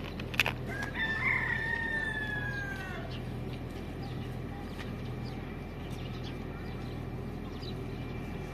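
A rooster crowing once, about a second in: one long pitched call that sags in pitch toward its end. A sharp click comes just before it, over a steady low hum.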